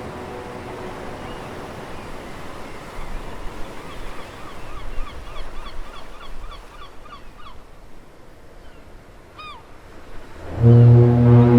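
The Sumburgh foghorn's low blast dies away at the start, leaving a sea ambience. A run of short, repeated seabird calls comes through it, about three a second, and a single call follows later. Near the end a new deep foghorn blast starts loud.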